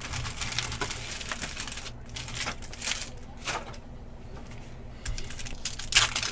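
Foil trading-card pack wrapper crinkling and tearing as it is opened, with cards being handled. Irregular crackles and rustles, the sharpest near the end.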